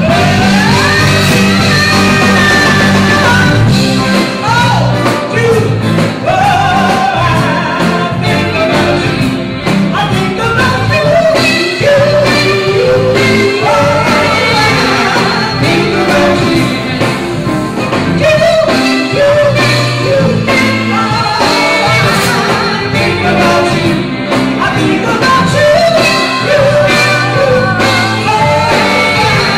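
A woman's soul-jazz vocal sung live into a microphone, backed by a band with electric bass and keyboard.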